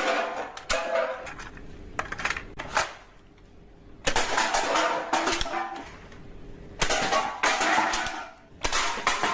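Hard plastic toy pieces clattering and clicking as they are handled, in several bursts of rattling with short pauses between.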